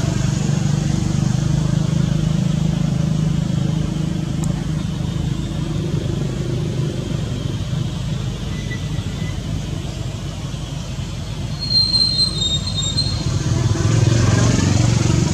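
Steady low rumble of background noise, with a short high chirp about twelve seconds in.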